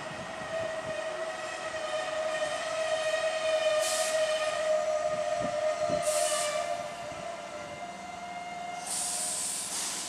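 Keihan electric commuter train standing at a station platform: a steady whine from the train runs under three short bursts of compressed-air hissing, about four, six and nine seconds in.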